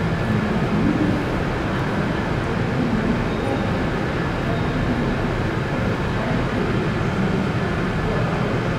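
Siemens Vectron electric locomotive standing at the platform with its train, giving a steady running hum.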